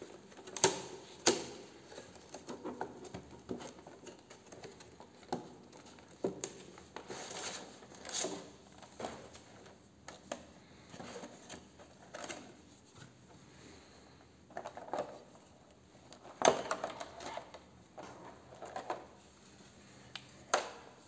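Clear plastic blister packaging and its cardboard insert being handled and pulled open: irregular crackling and rustling with sharp plastic snaps, the loudest ones about a second in and again near the end.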